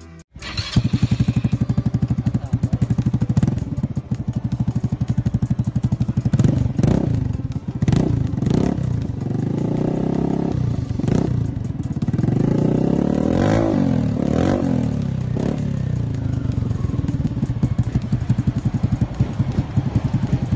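Motorstar Easy Ride 150N scooter's single-cylinder 150cc engine idling through a Villain carbon muffler with its silencer insert removed, giving a loud, full exhaust note. The throttle is blipped several times: short revs around the middle, then a longer rise and fall, before it settles back to idle.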